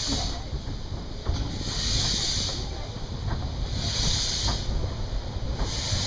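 Narrow-gauge steam locomotive pulling away slowly, with a puff of steam hissing out at the cylinders roughly every two seconds, the drain cocks open, over the low rumble of the moving train.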